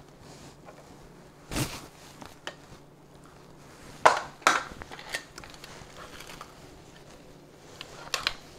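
Metal spoon scraping and knocking against a stainless steel pot and a handheld potato ricer as boiled potatoes are scooped into the ricer and pressed. A few sharp metal knocks stand out, the loudest about a second and a half in and two more around four seconds in.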